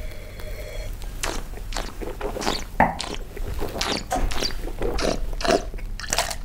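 Red wine being tasted: a series of short slurps as the taster draws air through the wine in his mouth, then spits into a paper cup near the end.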